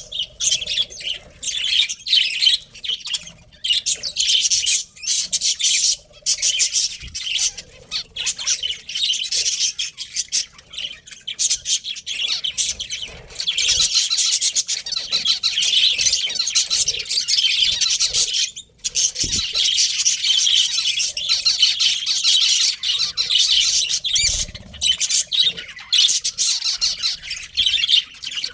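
A flock of budgerigars chattering and chirping: a dense, unbroken high-pitched twittering of many birds at once, dipping briefly about two-thirds of the way through.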